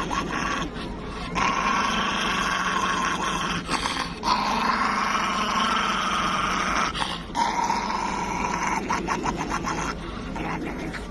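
A dog making long drawn-out vocal sounds: three of them, each two to three seconds long, with short breaks between.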